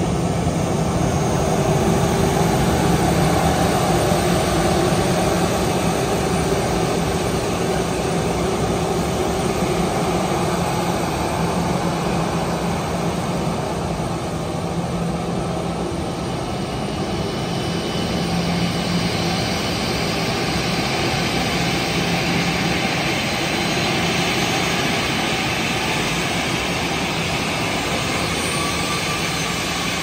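Jet engines of an Airbus A320-family airliner running as it taxis and turns on the runway: a steady low hum with a hiss and whine that grows louder and brighter from about halfway through, as the engines swing round toward the listener and blow up dust.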